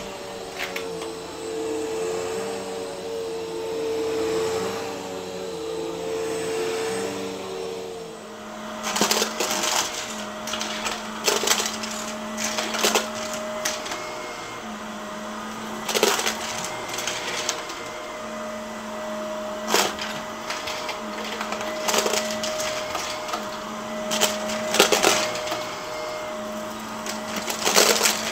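A Bissell upright vacuum runs over a thick shag rug with a steady hum. About eight seconds in, a different, blue upright vacuum takes over, its motor humming steadily while coins it sucks up from the rug clink and clatter through it in irregular sharp clicks every second or two.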